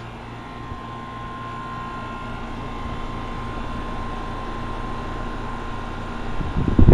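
Carrier high-efficiency central air-conditioner outdoor unit running: a steady hum of compressor and condenser fan with a thin steady tone above it. Its compressor is taken for a scroll compressor. Loud buffeting on the microphone near the end.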